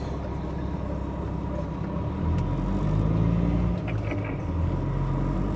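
Semi truck's diesel engine heard from inside the cab as the truck pulls away and turns. The engine note climbs about two seconds in, dips briefly near the middle, then picks up again.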